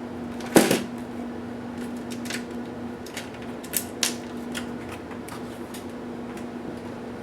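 Toshiba P755 laptop parts being handled during disassembly: a sharp knock about half a second in, then scattered small clicks and taps, with two sharper clicks around four seconds in, over a steady low hum.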